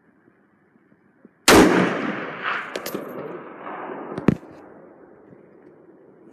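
A single gunshot about a second and a half in, loud and echoing away over a couple of seconds. A few sharp clicks follow, the last and loudest about four seconds in.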